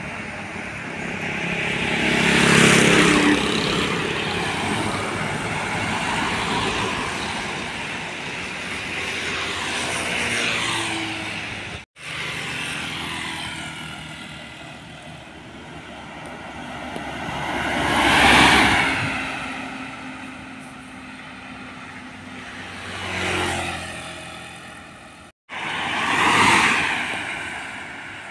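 Road traffic passing close by, mainly trucks and motorcycles: each engine swells as it approaches and falls in pitch and level as it goes past. There are several pass-bys, the loudest near the start, about midway and near the end, and the sound cuts off abruptly twice.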